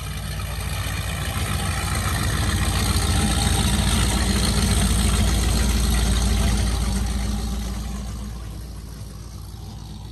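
High-performance offshore powerboat motoring slowly past, its engines a deep low rumble that swells to a peak about halfway through and then fades as it moves away.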